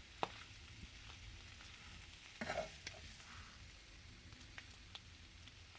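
Pulled pork and peppers sizzling faintly as they fry in a pan, with scattered small crackles and a brief louder sound about two and a half seconds in.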